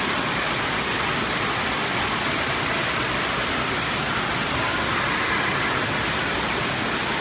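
Steady rushing hiss of spraying and splashing water from the jets and spray features of an indoor water-park splash pad.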